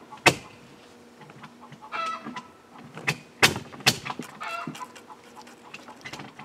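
Chickens clucking twice, among several sharp knocks: one just after the start and a quick run of three about three to four seconds in, louder than the clucks.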